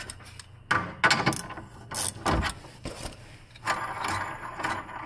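Metal clicks, clunks and ratcheting from a threaded bushing press-out tool being worked by hand to pull an aluminium-and-rubber lower control arm inner bushing from a BMW E90's rear subframe. A denser ratcheting, scraping stretch comes a little under four seconds in, as the bushing binds, which the mechanic thinks is getting stuck.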